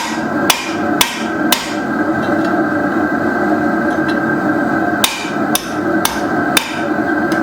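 Blacksmith's hammer striking metal on an anvil while forging: two runs of four blows about half a second apart, with a pause of a few seconds between them, over a steady hum.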